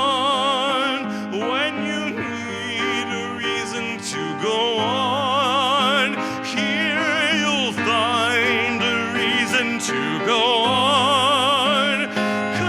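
A sung ballad with a singer holding long, wavering notes with wide vibrato over instrumental accompaniment.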